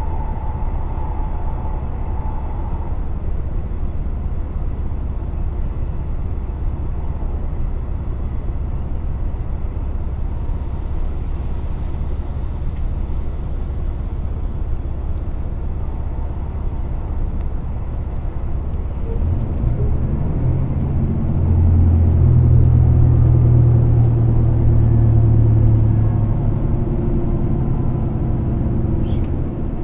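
Inside a moving train: the steady low rumble of the carriage running on the rails, with a brief hiss about a third of the way in. Past the middle a deeper hum swells up, at its loudest for several seconds, then eases off.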